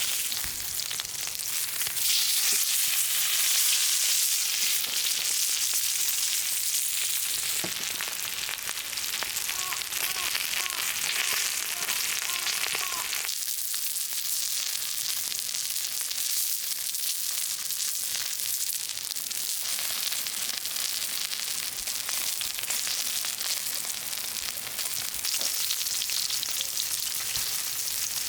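Food frying and sizzling on a hot griddle, a steady hiss whose tone shifts abruptly a few times.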